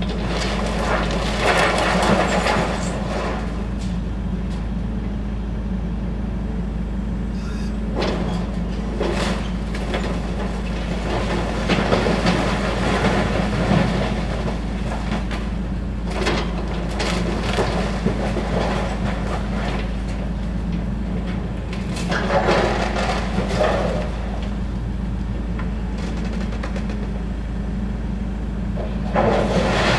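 Hydraulic excavator demolishing a brick building: its diesel engine runs steadily throughout, with repeated bursts of crunching and clattering as the bucket breaks into the brick masonry and rubble falls.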